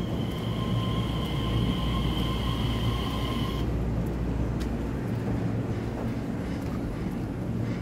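Taiwan Railway EMU3000 electric multiple unit pulling slowly out past the platform, with a steady low rumble of wheels and running gear. Over it is a steady high-pitched electric whine that cuts off suddenly about three and a half seconds in.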